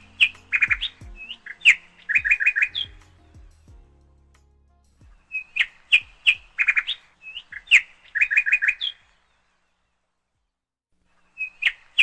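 Small bird chirping and trilling: a phrase of sharp chirps followed by a quick run of four or five notes, the same phrase coming back about every six seconds with short silences between.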